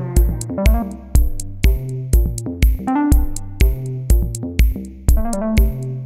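Electronic background music with a steady kick-drum beat, about two beats a second, under a synthesizer melody.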